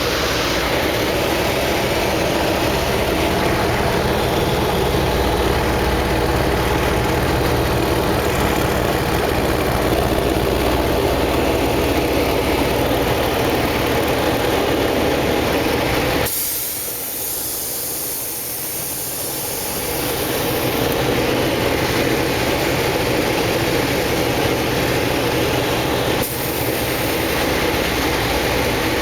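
Steady engine rumble with a haze of noise. About sixteen seconds in it suddenly thins and drops, then builds back up a few seconds later.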